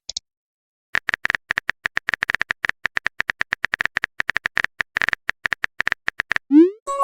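Phone keyboard tap sound effect: rapid short clicks for about five seconds, as a text message is typed. Near the end comes a short rising swoosh, the sound of the message being sent.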